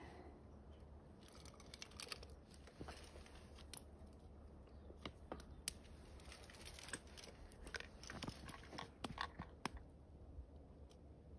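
Small wood fire in a steel campfire ring crackling faintly, with scattered sharp pops and clicks. A piece of split firewood is laid on it about halfway through.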